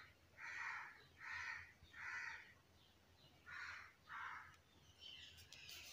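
Faint crow cawing: a run of about four harsh caws, a pause, then two more. A light rustle and a few clicks come near the end.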